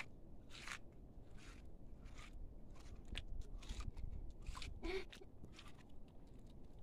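Faint, irregular crunching and scraping clicks from a hand smearing wet mud plaster across a courtyard floor.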